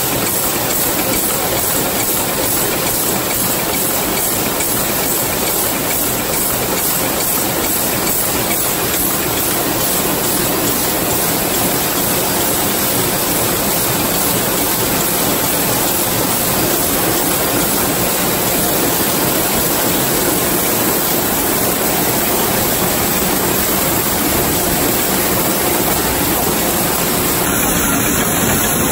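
Steady, unbroken din of punch presses running, their dies stamping hollow plug pins.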